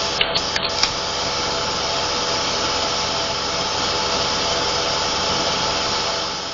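A dairy's milking compressor running with a steady drone and hum, with a few light clicks in the first second. The drone fades out near the end.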